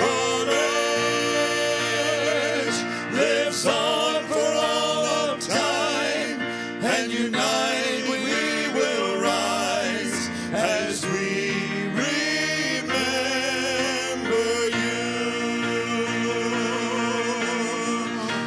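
Two men singing with piano accompaniment, holding long notes with a wavering vibrato.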